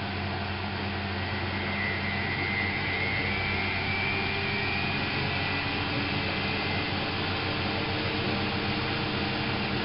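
Miele Novotronic W830 washing machine running: a steady mechanical hum and whir, with a faint whine that edges up in pitch a couple of seconds in.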